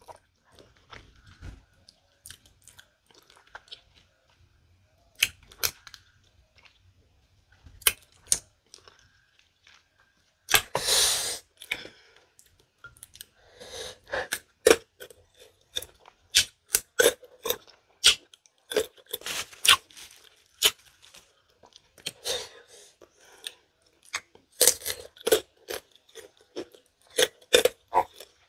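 Close-up mouth sounds of a person eating santol fruit and green tamarind pods: wet chewing, crunching and lip smacks. The sounds are sparse at first and come thick and fast from about halfway, with one longer, louder noisy sound about ten seconds in.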